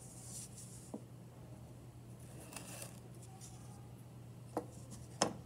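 Faint scraping of a wire angle-cutter drawn along the edge of a soft clay slab, bevelling it to 45 degrees, with a few light knocks as the wooden tool touches and is set down on the work table.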